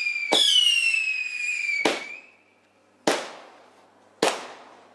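Fireworks going off: a bang and a whistle falling slowly in pitch for nearly two seconds, then three more sharp bangs about a second apart, each fading away afterwards.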